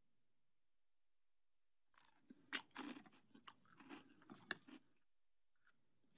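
Crunchy chewing of a mouthful of breakfast cereal, starting about two seconds in and going on for about three seconds as a run of crisp crunches.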